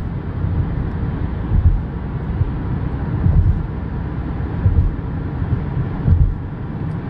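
Road noise inside the cabin of a car driving on a highway: a steady low rumble that swells every second or two.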